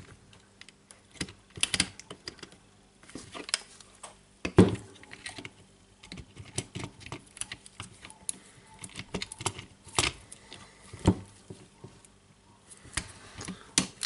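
Irregular clicks, taps and knocks of the hard plastic housing parts of a Milwaukee M18 FID2 impact driver being pressed and worked into alignment by hand, with a few sharper knocks about four and a half, ten and eleven seconds in.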